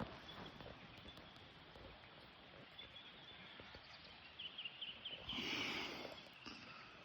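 Quiet outdoor bush ambience: a steady faint hiss, with a few short high chirps a little over four seconds in and a brief rustling noise just after.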